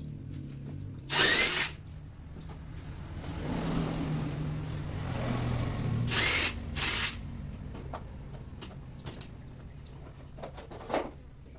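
A power tool run in short bursts at a motorcycle's rear wheel: one burst about a second in, then two close together about six seconds in, over a low steady hum.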